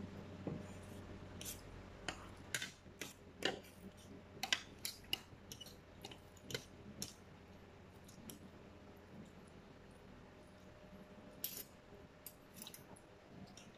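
Spoons and forks clinking and scraping against plates and bowls while eating: scattered light clicks, busiest in the first half and picking up again near the end.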